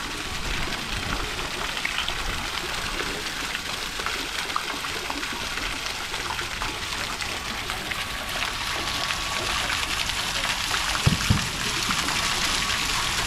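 Small multi-jet park fountain: water jets spraying up and splashing back into the basin, a steady hiss of falling water. Two brief low thumps sound about eleven seconds in.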